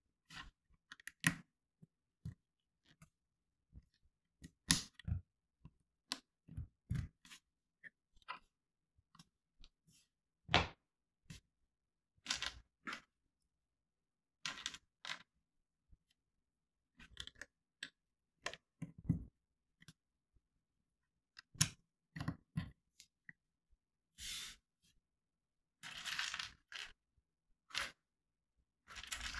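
Plastic Lego bricks clicking and knocking as small pieces are picked up, set down on the table and pressed together, in irregular single clicks with a few longer, noisier handling sounds near the end.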